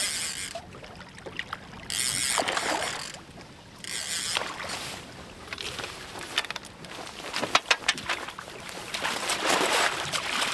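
A hooked northern pike thrashing and splashing at the surface beside the boat as it is netted, in several irregular bursts of splashing with a few sharp knocks between them.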